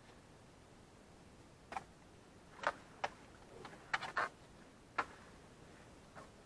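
A landing-net pole being picked up and swung out over the water, giving about six sharp, irregular clicks and knocks.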